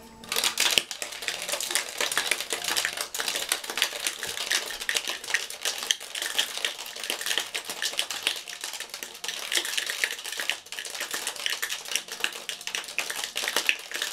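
Ice cubes rattling hard inside a two-piece metal cocktail shaker shaken vigorously to chill the drink: a fast, dense clatter of ice against the tins that starts a moment in.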